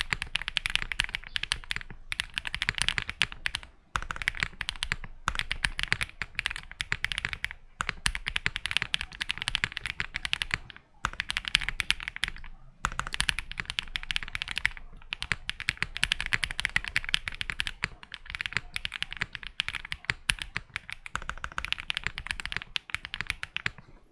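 Typing on a Mr.Suit custom mechanical keyboard with Durock POM switches on a POM plate and GMK keycaps: rapid keystrokes in runs of a few seconds, broken by brief pauses.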